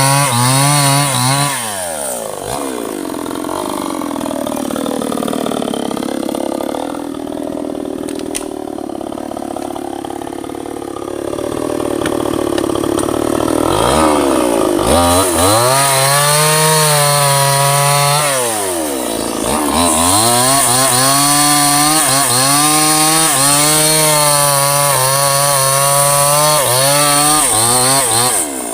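Two-stroke chainsaw at full throttle cutting into a teak trunk. For about ten seconds early on the engine bogs down under load as the chain bites into the wood. It then revs high again, with a sudden dip in revs about two-thirds of the way through.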